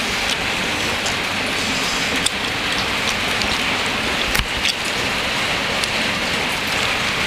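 Steady rain falling, an even hiss with scattered sharp drop clicks.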